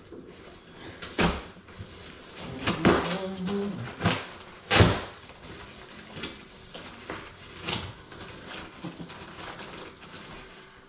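A cardboard shipping box being torn open by hand: a series of sharp rips and crackles of cardboard, the loudest about five seconds in, with quieter rustling between them.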